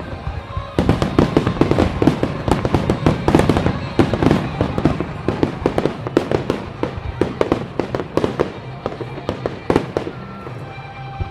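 Fireworks display: a dense, rapid barrage of bangs and crackling reports starts about a second in and thins near the end, with music playing underneath.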